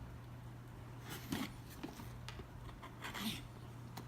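Cardboard RC kit box being handled and opened: a few short scrapes and rustles over a steady low hum.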